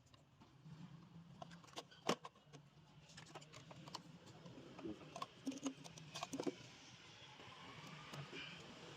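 Hand tools and metal parts clicking and clinking at irregular intervals during a repair, over a faint steady low hum.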